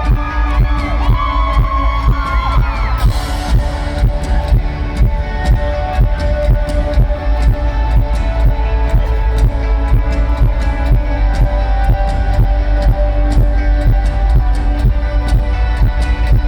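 Rock band playing live: guitars and a steady drum beat, with a heavy booming bass that dominates the sound.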